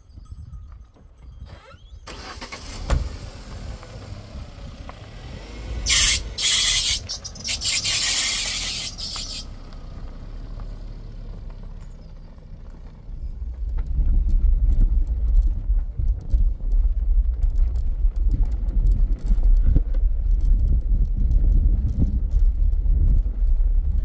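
A car setting off and driving on a rough dirt track. A knock comes about three seconds in and a loud hissing noise lasts about three seconds from six seconds in. From about fourteen seconds on, a steady low rumble of the car moving over rough ground is heard from inside the cabin.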